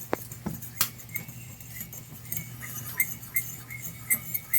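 A utensil clinking and tapping against a bowl at irregular intervals as egg yolks and grated Parmesan are stirred together, some taps leaving a short ring, over a steady low hum.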